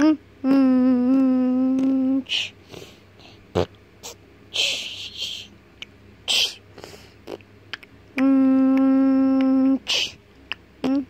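A voice humming two long, steady held notes, with short breathy hisses and small clicks between them.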